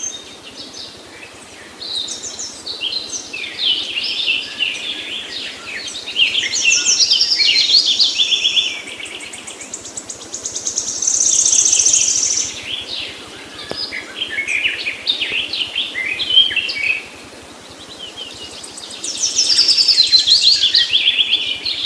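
Several songbirds singing and chirping at once, overlapping phrases and rapid trills that swell and die back in waves, with quieter stretches about nine seconds in and again near seventeen seconds.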